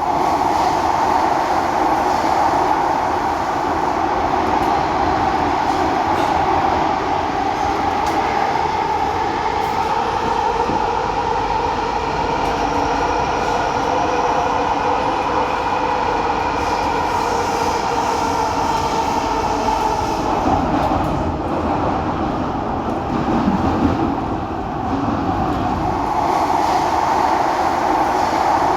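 Noisy ride aboard a moving train: a continuous loud rumble and roar of the carriage on the rails, with a brief dip and change in the noise about 24 seconds in.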